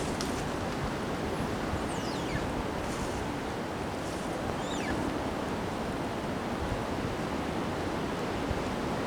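Windstorm wind rushing steadily, a dense noisy roar with no let-up. Two faint high whistles fall in pitch about two seconds in and again near the middle.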